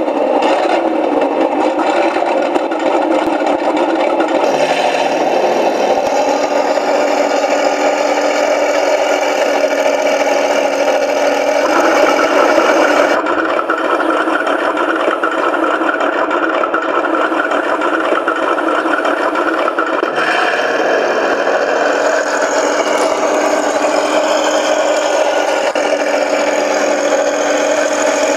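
Sound unit of a 1:16 Heng Long RC tank playing a running tank engine as the model drives. The engine note is steady and shifts pitch several times, about 4 s, 12 s and 20 s in.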